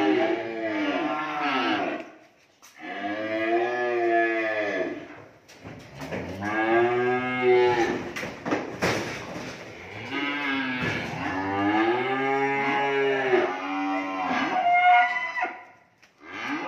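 Young cattle mooing repeatedly: a string of long, drawn-out calls, each lasting a couple of seconds, with short breaks between them, about five in all.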